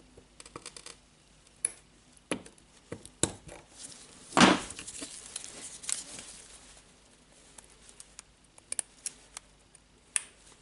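Small metal clicks and taps of circlip pliers and a steel circlip being worked onto a cordless drill's anvil shaft, with one louder scraping noise lasting about half a second near the middle.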